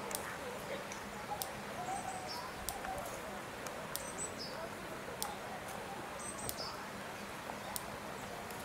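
Outdoor ambience of distant visitors' voices. A small bird gives a short high call about every two seconds, and there are scattered sharp clicks throughout.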